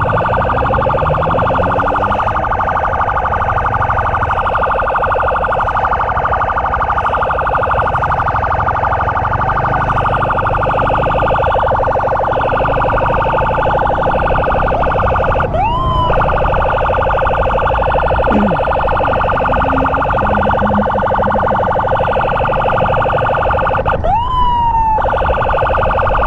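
Emergency escort sirens sounding continuously as a steady, fast-pulsing tone. Sharp rising siren whoops cut in about sixteen seconds in and twice more near the end.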